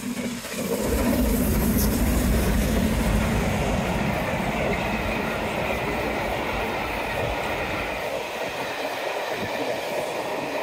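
Double-headed steam-hauled passenger train passing close at speed, its rumble swelling about a second in and running on steadily with the sound of wheels on the rails, easing a little near the end.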